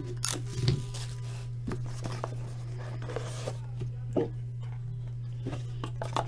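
A sealed trading-card box being opened and handled: scattered short scrapes, clicks and rustles of cardboard and wrapping, over a steady low electrical hum.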